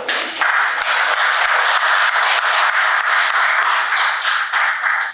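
Audience applauding: dense, steady clapping from a crowd that starts suddenly and cuts off abruptly near the end.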